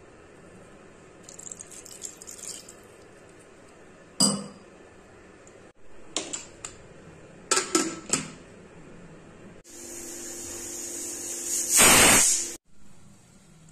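Metal clinks and clanks of an aluminium pressure cooker and its lid being handled, with one sharp knock about four seconds in. Near the end, steam hisses from the pressure cooker's weight valve, rising to a loud whistle-like rush before cutting off suddenly.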